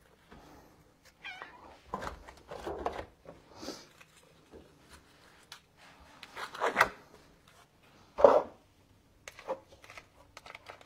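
House cats meowing in a string of short separate calls, the loudest about eight seconds in, begging for food as it is being put out.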